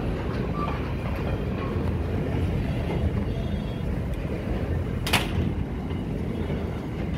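A freight train's empty flat wagons rolling past, a steady rumble of steel wheels on rail, with one sharp knock about five seconds in.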